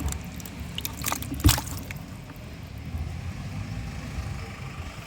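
Shallow water sloshing and splashing as hands search through it, with a sharp splash about one and a half seconds in, over a steady low rumble.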